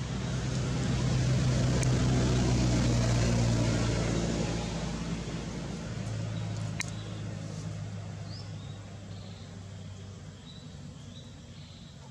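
Low, steady hum of a motor vehicle's engine going past: it swells to its loudest two to four seconds in, then slowly fades away. A few faint, short high chirps come in the later seconds.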